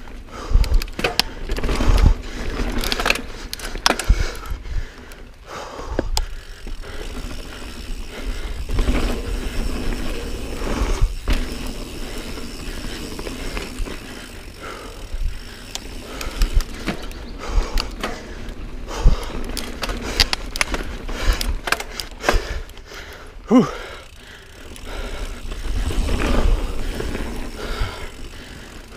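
Niner Jet 9 RDO mountain bike ridden along a dirt singletrack: tyre noise over the dirt with frequent rattles, clicks and knocks from the bike as it goes over bumps, under a low rumble of wind on the microphone.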